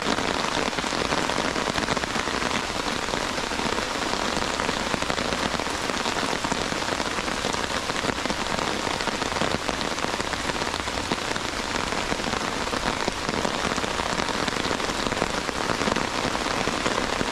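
Steady heavy rain falling, a dense even patter of drops.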